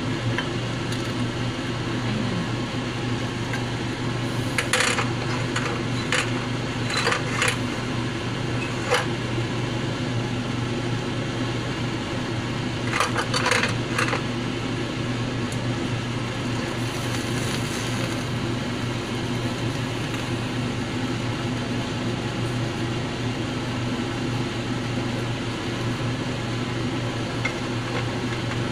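Cooking pots and a metal strainer clinking and knocking as they are handled and food is tipped from one pot into another: several clinks about five to nine seconds in and a quick cluster around thirteen to fourteen seconds. A steady low mechanical hum runs underneath.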